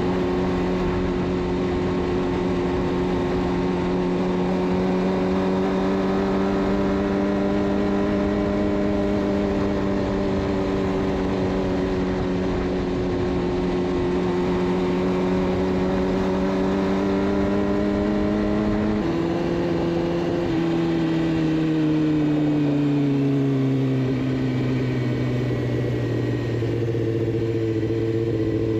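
Suzuki GSX-R600's inline-four engine through a de-catted Yoshimura exhaust, running at a steady pitch that creeps slowly upward. About two-thirds of the way in the note drops in two quick steps, like an upshift, then falls further as the throttle eases off and holds low to the end. Wind noise runs underneath.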